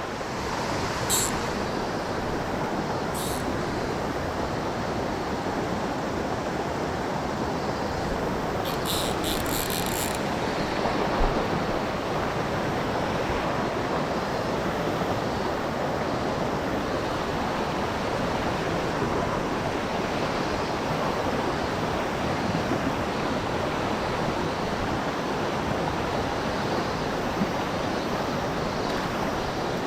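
Steady rushing of a mountain stream, with a few faint clicks about a second in and again around nine to ten seconds.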